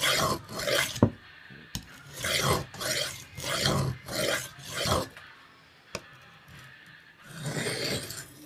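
Steel knife blade drawn in strokes diagonally across the coarse, dark side of a King whetstone, about six quick grinding passes followed by a pause and one more pass near the end. A single sharp tap sounds about a second in.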